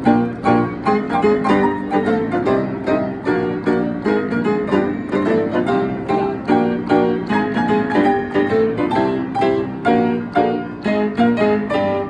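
Upright piano played four hands by two pianists, a fast, steady stream of notes and chords.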